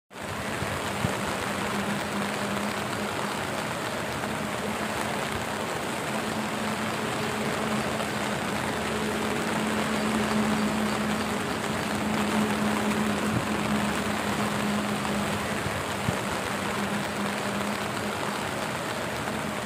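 Steady rushing-water noise from rain and flooding, with a faint low hum underneath.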